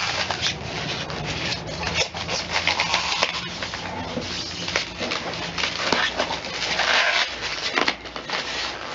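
Packaging rustling and crinkling, dotted with many short, sharp crackles, as a still-wrapped box is handled and worked open.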